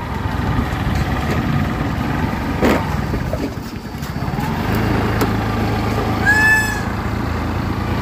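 A steady engine hum with a low rumble, the hum settling onto one low note about halfway through. A short high tone sounds about six and a half seconds in.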